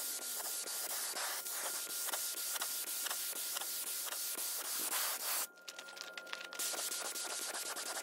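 Air-powered gravity-feed spray gun with a 1.8 tip laying on thick high-build 2K primer, a steady hiss of air and atomised primer. The trigger is released for about a second some five and a half seconds in, and then the spraying resumes.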